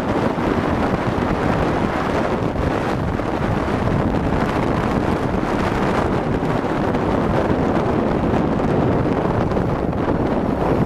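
Wind buffeting a helmet-mounted microphone on a moving motorcycle, a steady loud rush, with the Triumph Tiger 800 XCx's three-cylinder engine running underneath.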